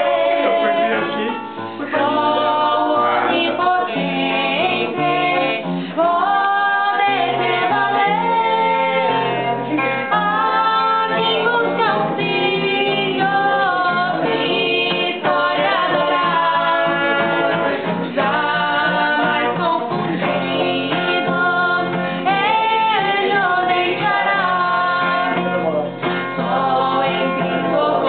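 A woman sings a Christian hymn with instrumental accompaniment underneath.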